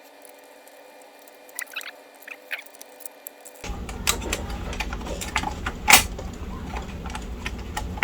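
Small clicks and scratching as a screwdriver backs a screw out of a laptop's internal power supply housing, with faint ticks at first, then handling noise and scattered sharp clicks, the loudest about six seconds in.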